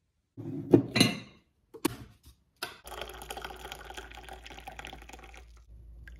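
A few sharp knocks and clatter about a second in, then tea poured from a ceramic teapot into a china mug: a steady splashing stream for about two and a half seconds.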